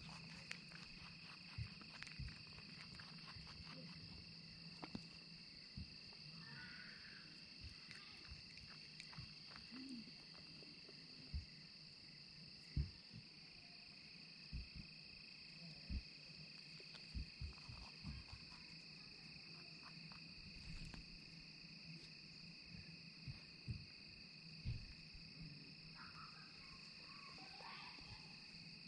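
A steady chorus of evening insects chirring in two high bands, with scattered soft low thumps and rustles close to the microphone from wild eastern cottontails nosing and bumping the camera as they feed.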